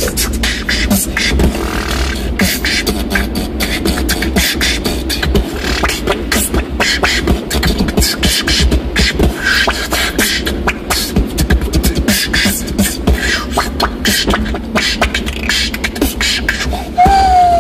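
Beatboxing inside a moving car: a fast, continuous run of vocal kicks, snares and hi-hat clicks over the car's low rumble, ending with a short falling pitched vocal tone that is the loudest sound.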